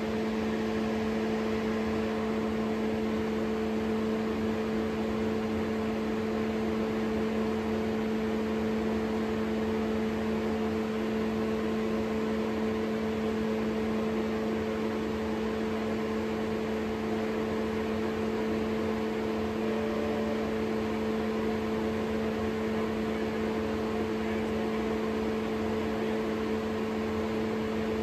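Dunel GW-1000 glow wire test apparatus running with its hood exhaust fan on: a steady, unchanging hum of two low tones over an even rush of air.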